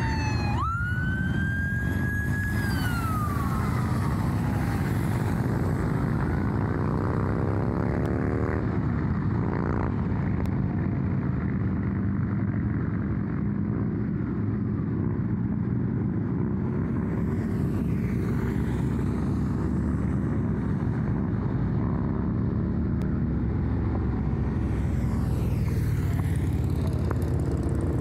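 An emergency vehicle's siren wailing: a sweep down, one more rise that holds, then a slow slide down as it dies away within the first few seconds. After that, vehicles drive past with engine and tyre noise over a steady low road rumble.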